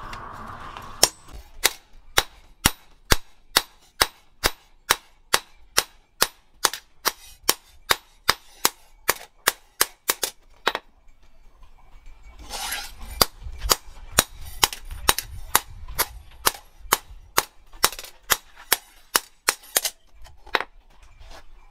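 Hand hammer striking a steel knife blade on a post anvil in a steady rhythm, a little over two sharp metallic blows a second. The hammering stops briefly about halfway through, then resumes at the same pace.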